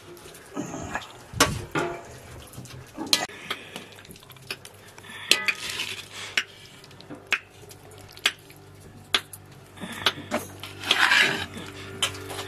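Metal spoon scraping and clinking against a large metal cooking pot and a metal platter as cooked vegetables are scooped from one to the other, with sharp clinks about once a second and a longer scrape near the end.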